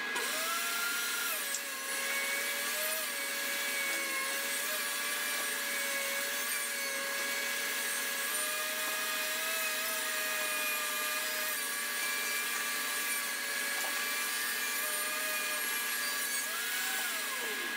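DeWalt DW735 thickness planer running as boards are fed through it one after another. The motor's pitch wavers as the cutterhead takes each board, over a steady high whine. Near the end the pitch briefly rises, then drops away sharply.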